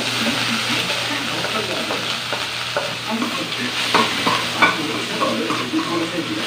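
Minced aromatics sizzling as they fry in a metal wok, stirred with a metal spoon that clicks and scrapes against the pan several times.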